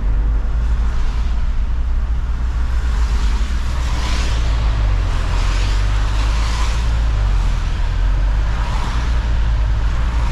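Road noise of a moving camper van: a steady low rumble of engine and tyres, with several swells of hiss from tyres on the wet road.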